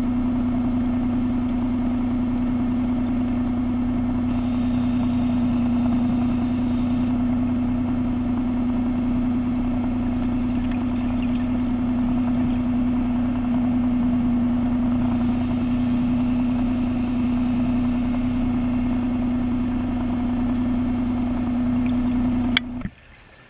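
A steady, loud underwater motor hum on one unchanging low pitch, with two hissing breaths through a scuba regulator about four and fifteen seconds in. It cuts off with a click near the end.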